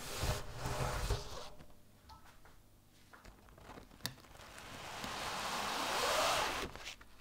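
Parchment paper rustling as baked bread is lifted from its baking tray, then about four seconds in a bench scraper scraping across the paper as it slides under the bread, building over two seconds and cutting off suddenly near the end.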